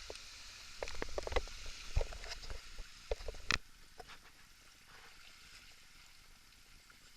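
Inflatable raft on a river: rushing water, with irregular paddle splashes and knocks against the boat in the first half, the sharpest about three and a half seconds in; after that only the water's steady rush remains.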